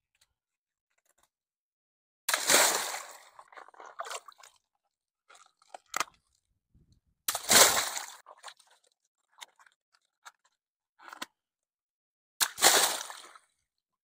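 Three water balloons burst one after another, about five seconds apart, as a hand squeezes them over a tub of water. Each is a sharp pop followed by about a second of splashing water, with small drips and sloshes between.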